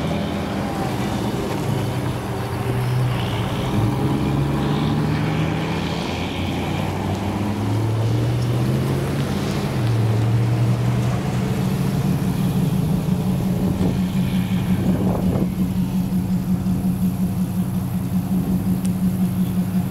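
Engine drone whose pitch steps up and down several times in the first half, then settles into a steady hum with a fast, regular pulsing from about twelve seconds in.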